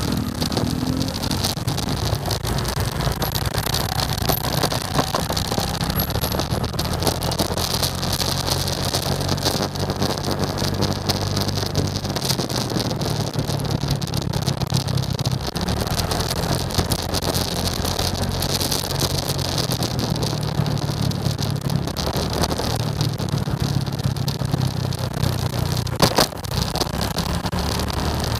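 Motorcycle engine running under way, its pitch stepping up and down with the throttle, over steady wind and road noise. One sharp knock near the end.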